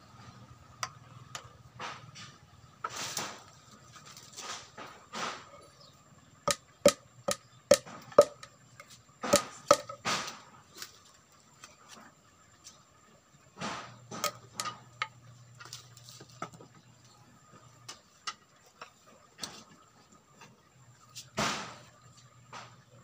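Green bamboo branch being cut and worked by hand with a small knife on a wooden stool: irregular sharp clicks and taps, loudest in a quick cluster about seven to ten seconds in.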